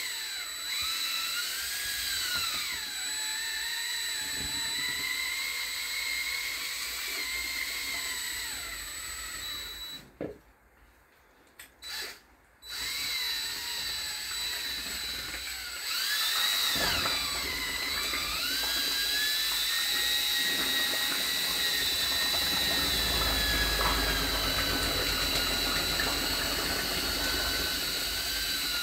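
Cordless drill with a paddle mixer running in a bowl, mixing casting plaster and water into a slurry; the motor whine rises and falls in pitch as the speed changes. About ten seconds in it stops for a couple of seconds, with two brief blips of the trigger, then runs on steadily.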